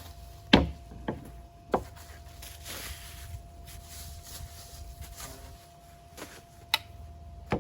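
Packaging material being pulled off metal roof rack parts: rustling, with a few sharp knocks and clacks of the parts, the loudest about half a second in.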